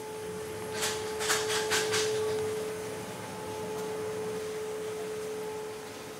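A steady humming tone, with a quick run of about five sharp clicks between one and two seconds in.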